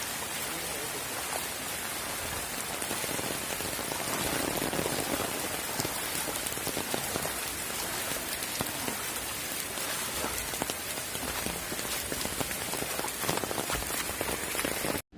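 Steady rain falling on a hard surface, a continuous hiss dotted with many small drop ticks.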